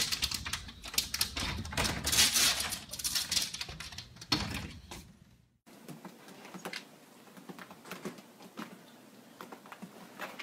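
A cat's claws clattering on a screen door as it climbs, a rapid run of clicks and rattles. After a cut about five and a half seconds in, there are only fainter, scattered clicks and scrapes.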